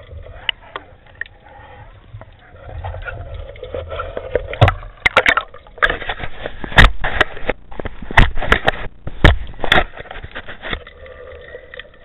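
Underwater sound through a camera's waterproof housing: a muffled water rumble with a steady hum, broken in the middle by a run of sharp clicks and loud knocks as a speared seabream is handled on the speargun shaft close to the camera.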